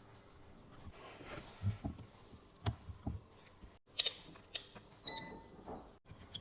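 Scattered light clicks and taps of small tools and plastic parts being handled, with one short electronic beep about five seconds in.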